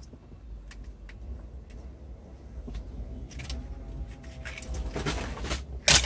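Hands handling plastic centre-console trim and a wiring connector: scattered light clicks and rustling, with a sharper click near the end.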